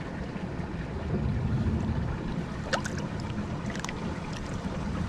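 Creek water running, under a low uneven rumble of wind on the microphone, with a couple of brief light splashes or clicks about three and four seconds in.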